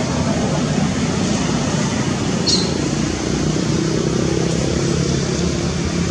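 Steady low rumble of distant motor traffic, with a faint engine hum in the second half and one brief high chirp about two and a half seconds in.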